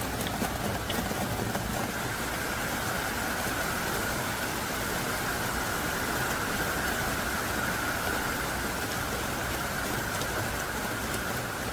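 Heavy downpour falling steadily: an even, unbroken hiss of thick, hard rain.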